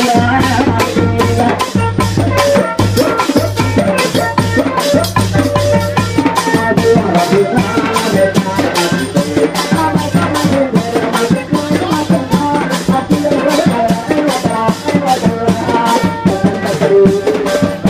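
Loud Thai procession music, amplified through horn loudspeakers, with a fast steady drumbeat, rattling shaker-like percussion and a melody over it.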